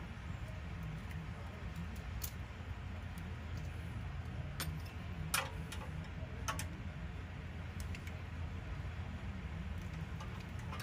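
Scattered light metal clicks and clinks of a wrench and steel feeler gauge against a small engine's valve rocker arms as the intake valve lash is adjusted, a handful of them spread out over a steady low hum.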